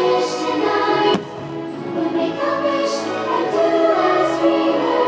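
Fireworks show music played over loudspeakers: an orchestra with a choir singing sustained notes, with a sharp click about a second in.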